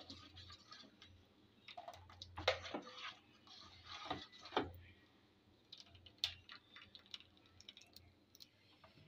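A whisk stirring thin batter in a glass bowl, ticking and clicking against the glass at irregular intervals with soft scrapes. The clicks are busiest in the first half and thin out near the end.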